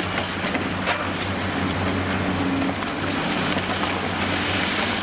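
Heavy demolition excavator's diesel engine running steadily, a low hum under a constant rushing noise, with a few faint knocks about a second in.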